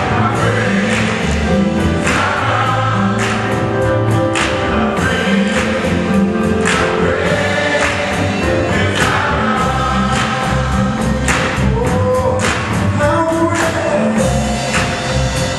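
Gospel choir singing with instrumental backing, the bass and drums keeping a steady beat.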